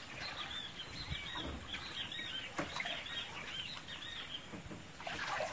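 Birds chirping: a quick series of short, high, arched chirps, two or three a second, that stops about four seconds in. A few soft knocks come through underneath, and a louder rush of noise comes near the end.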